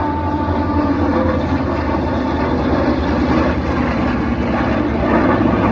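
Propeller aircraft engine running with a steady, loud drone.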